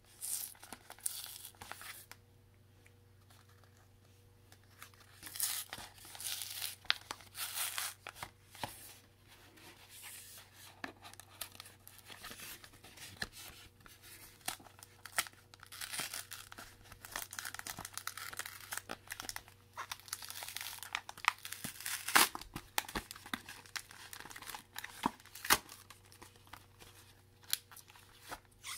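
Foil Pokémon booster pack wrappers being torn open and crinkled by hand, in irregular rustling bursts with a few sharp crackles.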